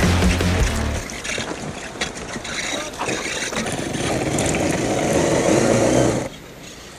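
Music with a heavy low beat ends about a second in. Then a 1/10 RC rock crawler's electric motor and geared drivetrain run under load, with scattered clicks and scrapes, growing louder before cutting off about six seconds in.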